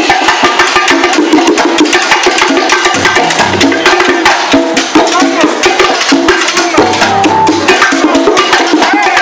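A live Latin orchestra playing, heard from inside its percussion section: timbales and congas beat out a fast, busy rhythm of sharp strikes over the band's sustained notes.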